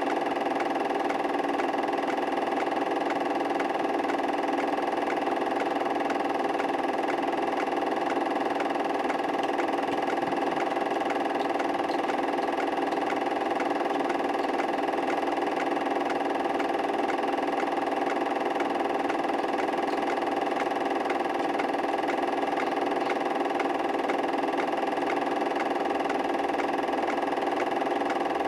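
A steady, unchanging mechanical hum with no separate events.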